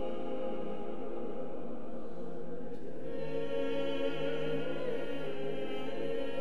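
Mixed choir singing slow, sustained chords with pipe organ accompaniment. About three seconds in, fuller held chords enter, with a steady low note beneath and a high voice wavering on top.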